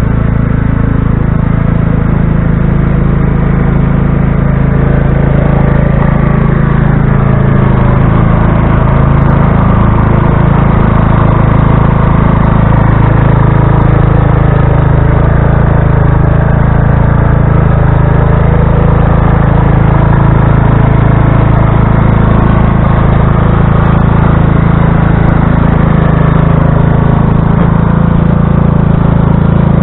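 Riding lawn tractor's small engine running steadily while the tractor pushes snow with its front plow blade, the pitch wavering slightly now and then.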